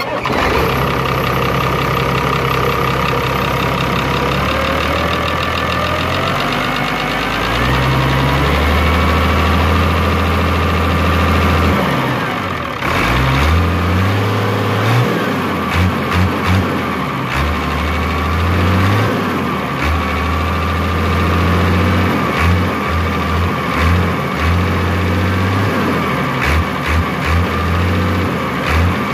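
Isuzu 6BG1 six-cylinder diesel engine running just after its injection pump timing was advanced to cure a slight misfire. Its speed rises between about six and ten seconds in, and from about halfway on the low rumble pulses unevenly.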